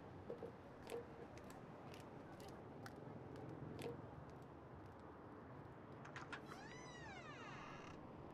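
Soft footsteps on concrete stairs, about one a second, then a domestic cat meowing once near the end: a single call that rises and falls in pitch.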